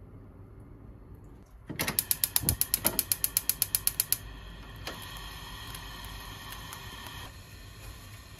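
Gas hob burner's spark igniter clicking rapidly, about eight clicks a second for two seconds, until the burner lights; the flame then burns steadily, with a single tap a little later.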